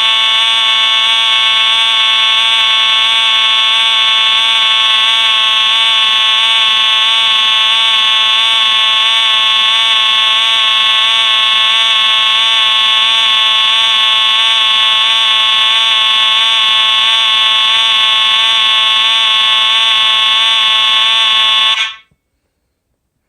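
Wheelock EL1 electronic horn and Simplex 2903 mechanical horn sounding together on continuous: one very loud, unbroken blare with a strong high tone. It cuts off suddenly near the end.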